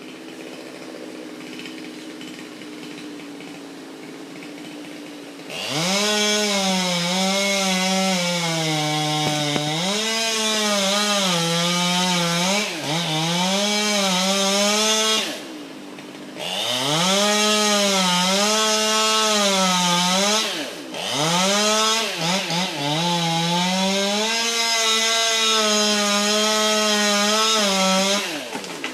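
A chainsaw revs up about five seconds in, after a quieter steady hum, and runs hard through wood. Its engine pitch rises and sags with the load as it cuts. It eases off briefly twice before dropping off near the end.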